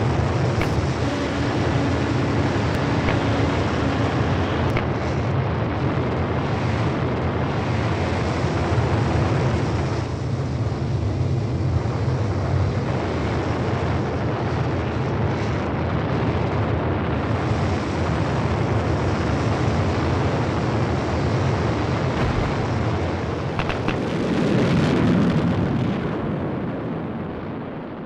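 Animated rocket-thruster roar of the Curiosity rover's sky-crane descent stage firing its retrorockets: a steady, noisy rumble that swells about three-quarters of the way through and then fades near the end.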